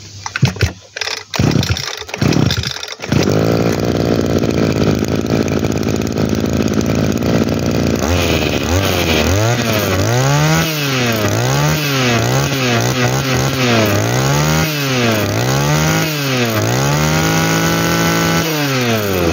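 Kioritz (Echo) 23.5 cc two-stroke brush-cutter engine being pull-started. It sputters a few times before catching about three seconds in, then idles. From about eight seconds in it is revved up and down by hand at the carburettor, about once a second, with one longer rev near the end before it drops back to idle.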